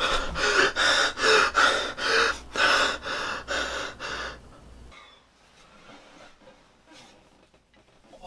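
A man panting and gasping for breath, about three quick breaths a second, growing quieter until they stop about four and a half seconds in.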